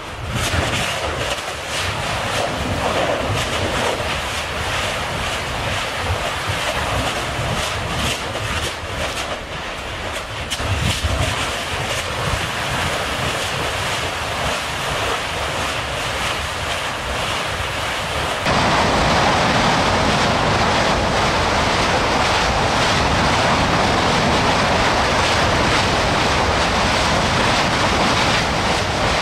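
Continuous rushing roar of an erupting Kilauea lava fissure, like heavy surf, with sharp crackling pops in the first half. About 18 seconds in it changes abruptly to a louder, steadier roar.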